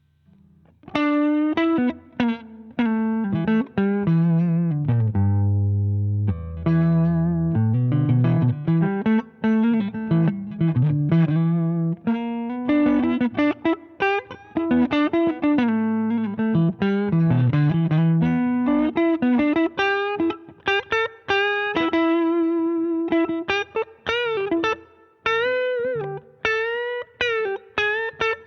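Electric guitar played through a Danelectro Transparent Overdrive V2 pedal, a mildly driven lead line of single notes with wavering vibrato that starts about a second in.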